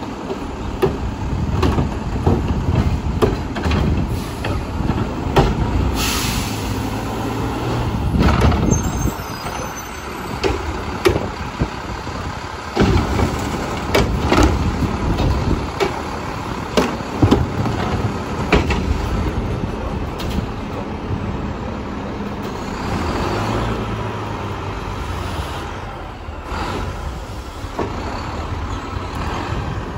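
Mack LEU garbage truck with a Heil Half/Pack front-loader body, its diesel engine rumbling steadily under repeated clanks and knocks, with a short air-brake hiss about six seconds in.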